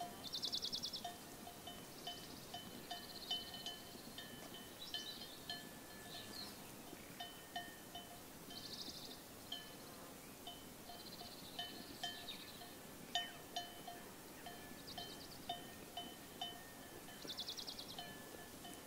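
Sheep bells clinking lightly and irregularly as the flock grazes, the same few ringing notes repeating over and over. Short high buzzing trills cut in every few seconds.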